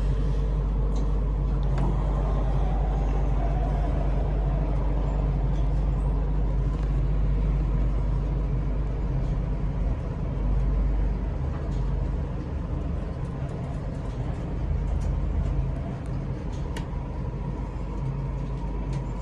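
Passenger lift car travelling down, heard from inside the car: a steady low rumble and hum from the car and its drive, with small clicks and rattles over it.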